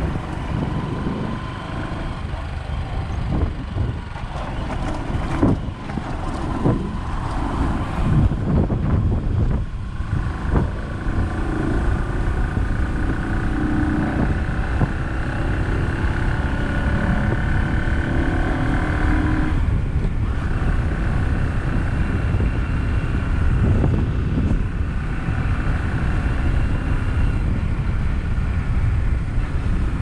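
A moving vehicle's engine running under heavy wind rush on the microphone. In the first ten seconds there are repeated knocks and jolts over a rough, potholed dirt road; after that the ride goes smoother and the engine note holds steadier on paved road.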